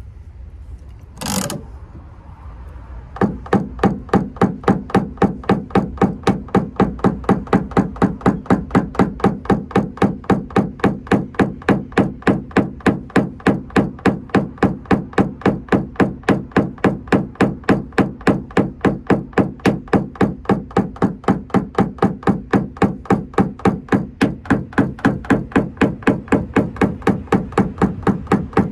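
Paintless dent repair tap-down: a small plastic-headed PDR hammer strikes a tap-down punch held against the car's quarter panel. It makes a steady, rapid tapping of about four blows a second, starting about three seconds in, as the raised edges around the dent are knocked down. One short sharp sound comes about a second in.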